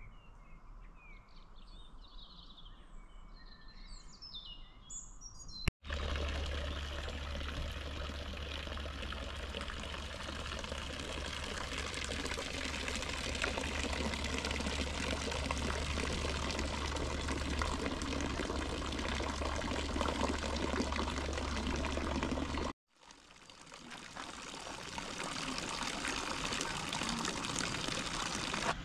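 Small birds chirping faintly for the first few seconds. Then water from a fountain spout pours steadily into a wooden log trough. The sound cuts out briefly about two-thirds of the way through and builds up again.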